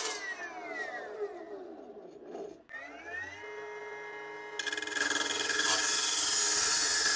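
Homemade electric saw: the blade winds down with a falling whine, spins back up with a rising whine and runs steady, then about four and a half seconds in it starts cutting, a loud harsh rasp over the motor's whine.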